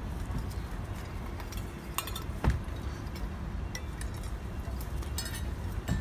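Small metal bowl clinking and knocking a few times as it is handled by puppies' mouths, the loudest knock about two and a half seconds in, over a steady low rumble.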